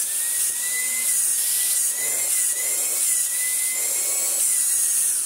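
Vax Blade cordless stick vacuum running at full power: a steady high motor whine, wavering slightly in pitch, over rushing air, which winds down near the end. The airflow is strong.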